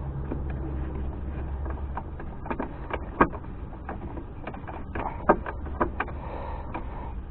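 Scattered clicks and knocks of a hand tool tightening a bolt, over a low steady rumble.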